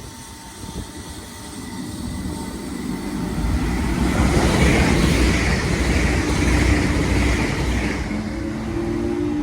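Train passing through the station: a rumble and wheel-on-rail noise build up, are loudest in the middle, then ease, with a steady hum coming in near the end.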